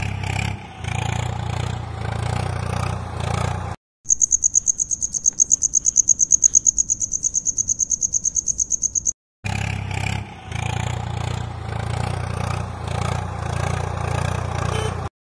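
A tractor engine running steadily, cut off abruptly after about four seconds. A cricket's high chirping trill of about nine pulses a second follows for about five seconds, and then the engine sound runs again.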